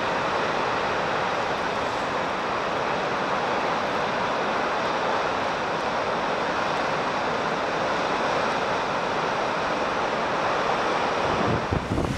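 Heavy storm surf surging and churning against a rock face: a steady, unbroken rush of water. Near the end, gusts of wind buffet the microphone.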